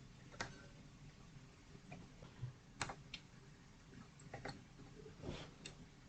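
Faint, irregular light clicks and taps of small tools and hard plastic parts being handled at the workbench, about eight to ten of them, the sharpest a little before halfway.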